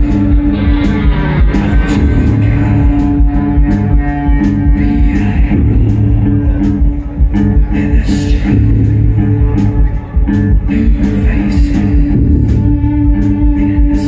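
Loud live band music: a repetitive drone-rock groove built on a steady held low note and an evenly pulsing low rhythm, with quick regular cymbal hits over guitar and synths.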